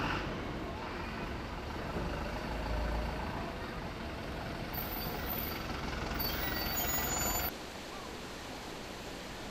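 Small refrigerated delivery truck driving off and turning, its engine and tyres running steadily, with brief high-pitched tones about five seconds in and again from about six to seven seconds. The truck sound cuts off at about seven and a half seconds, leaving a quieter steady hiss.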